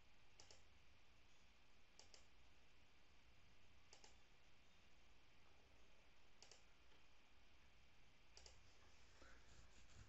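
Faint computer mouse clicks, single clicks about two seconds apart, as curves are picked one by one in CAD software.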